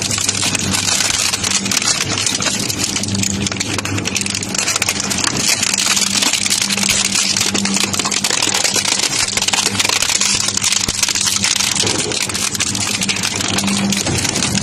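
Industrial crushing machine running: a steady low motor hum under continuous dense crunching and crackling as material is broken up in it.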